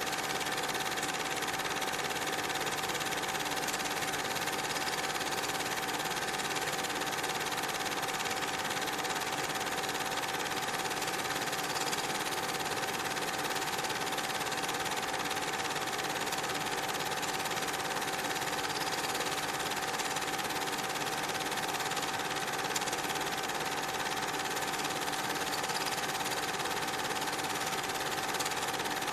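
Steady mechanical whirring with a constant whining tone, unchanging and without any beat or pause.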